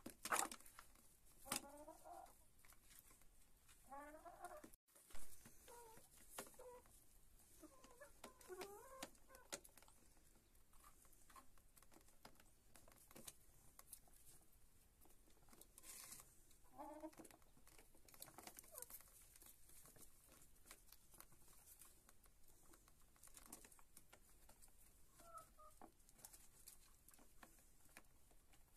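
Domestic hens giving a few short, soft clucks now and then while pecking at food, with many small tapping clicks of beaks striking a plastic tub and the hard floor.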